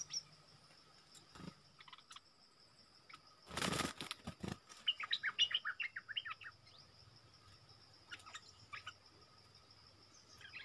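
Stripe-throated bulbuls giving quick bursts of sharp chirps, the longest run a little past the middle. A loud rustling flurry about three and a half seconds in, over a faint steady high tone.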